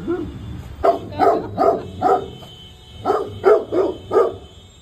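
A dog barking in two runs of four sharp barks, reacting to the rumbling of thunder.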